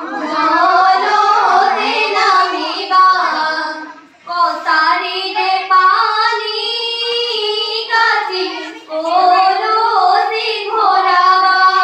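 A group of teenage girls singing an Assamese biyanaam (traditional wedding song) together into microphones. Their long sung phrases break briefly for breath about four seconds in and again near nine seconds.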